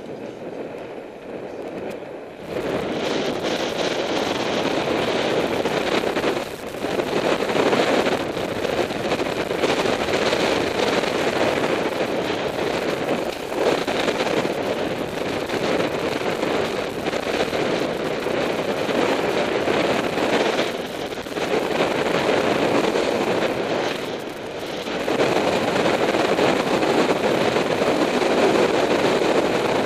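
Wind rushing and buffeting over the microphone of a camera riding on a racing bicycle at speed, mixed with tyre noise on pavement. It rises sharply about two seconds in and eases briefly a few times.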